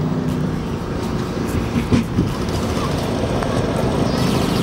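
Engine of an armored truck running with a steady low drone as it drives slowly over grass, with a couple of short knocks about two seconds in.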